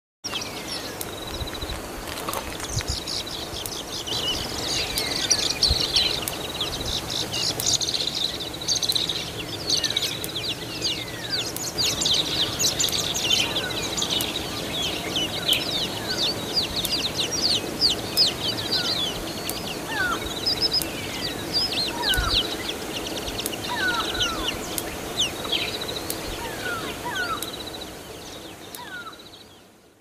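Dawn chorus of many birds chirping and calling at once, with rapid short chirps and scattered falling whistles, over a faint steady background; it fades out near the end.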